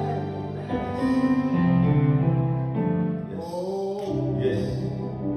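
Slow music of long held chords, changing every second or so.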